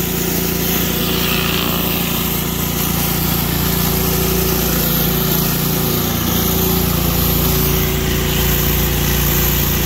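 Pressure washer engine running steadily, with the constant hiss of water spraying under a Whisper hard surface cleaner as it is pushed over a wet concrete driveway.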